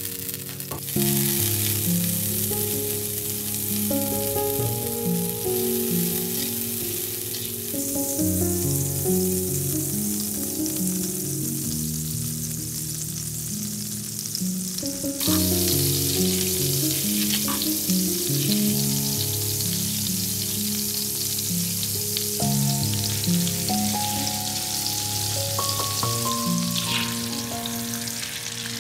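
Butter melting and sizzling in a hot frying pan, a steady crackling hiss that starts sharply about a second in, with light background music underneath.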